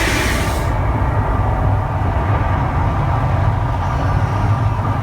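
Fountain firework spraying with a bright hiss that cuts off about half a second in, leaving a steady low rumble.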